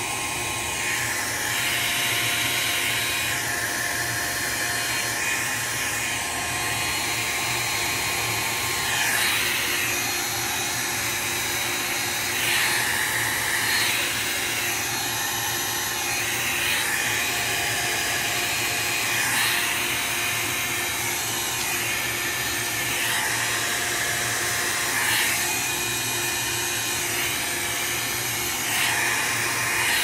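Handheld heat gun blowing steadily, its air rush swelling and easing every two to three seconds, while it blows alcohol ink across ceramic tiles.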